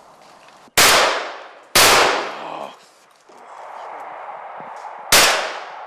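Three shotgun shots fired at wood pigeons overhead: two about a second apart, then a third about three seconds later. Each is a sharp crack followed by a short fading echo.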